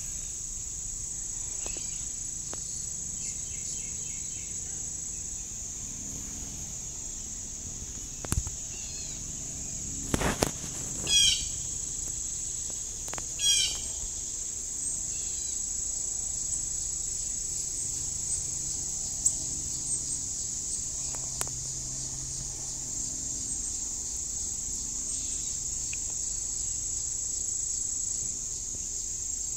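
Steady high-pitched drone of a summer insect chorus, like crickets or katydids. A few short bird chirps come through about eleven and thirteen seconds in, with a few brief knocks just before them.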